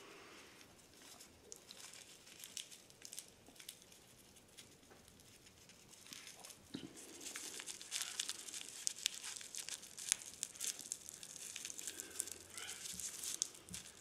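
Cigarette rolling paper and crumbled dry tobacco crinkling and rustling faintly under the fingers as a cigarette is hand-rolled, with the crackling growing busier about halfway through.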